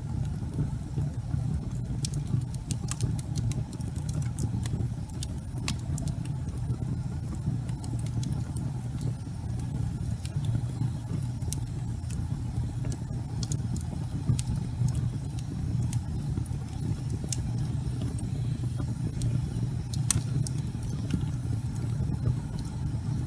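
Wood logs burning in a fireplace: a steady low rumble of flame with scattered sharp crackles and pops, the loudest pop about twenty seconds in.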